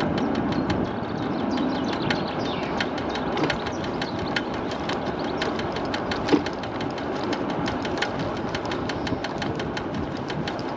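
MiniPro Mi716 electric scooter in motion, its front wheel making a regular ticking knock a few times a second over steady road and wind noise, with one louder knock about six seconds in. The knock points to something loose or out of true at the front wheel.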